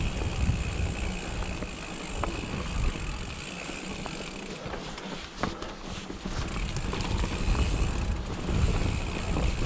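Mountain bike rolling over a rocky dirt trail, with wind buffeting the microphone and scattered knocks and rattles from the bike. The coasting rear freehub gives a steady high buzz that drops out for a few seconds in the middle.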